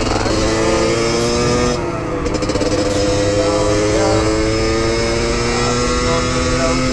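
Beta RR 50 enduro motorbike's 50cc two-stroke engine pulling under way. Its pitch drops once about two seconds in, as at a gear change, then climbs steadily as the bike accelerates.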